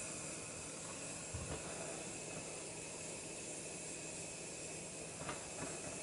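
Steady outdoor background hiss, with a few faint, brief soft knocks about a second in and again near the end.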